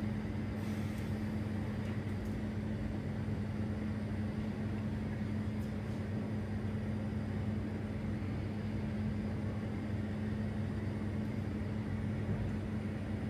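Natural gas and oxygen glassblowing bench torch burning steadily, a constant hiss of flame over a steady low hum.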